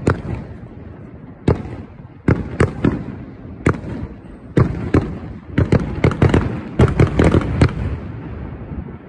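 Aerial firework shells bursting overhead: a string of sharp bangs at irregular spacing, coming thick and fast in a rapid flurry from about halfway in, then thinning out near the end.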